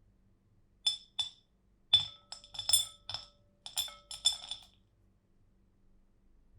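Kitchenware clinking: about ten light, sharp strikes over some four seconds, several leaving a brief ringing tone.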